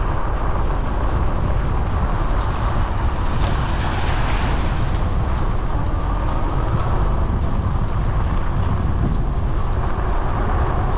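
Steady road and engine noise of a vehicle being driven, a dense low rumble with hiss above it.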